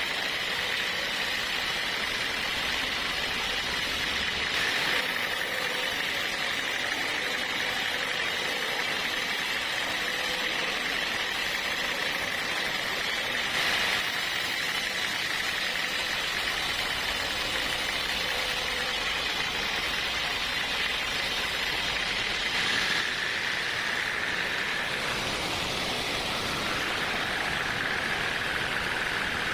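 A machine running steadily, with a constant high whine over a mechanical hum.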